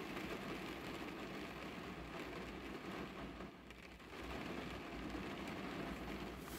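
Rain falling on a car's roof and glass, heard from inside the car: a steady, even hiss with a low rumble underneath, dipping briefly about three and a half seconds in.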